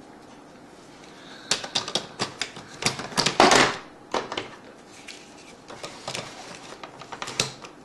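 Hard plastic clicking and clattering as a filled chocolate mold is fitted into the Cool Baker Chocolate Treat Maker's plastic spinner. A quick run of clicks starts about a second and a half in, with one louder rattle near the middle and a few lighter clicks after it.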